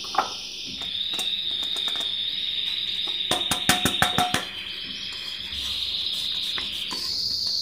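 Steady high chirring of crickets, with a quick run of clicks and taps about three to four seconds in, a spoon knocking against a glass as the ground seeds are put into it.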